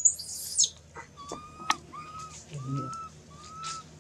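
Baby long-tailed macaque crying: a shrill scream in the first moment that falls away, then a string of short, even, high-pitched whimpering calls about every half second to a second.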